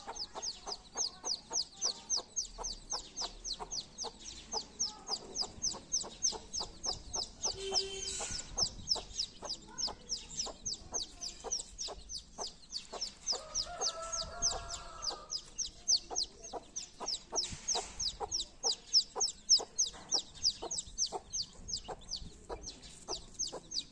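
Chicks peeping in a steady, rapid train of short, high, falling peeps, about three a second. The hen gives a short lower call about halfway through.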